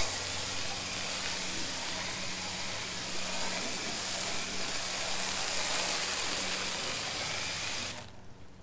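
Chemical Guys hose-end foam gun spraying soapy water onto a car's hood: a steady hiss of spray that cuts off sharply near the end. The sprayer is set for the most soap, laying down a pre-wash layer of suds.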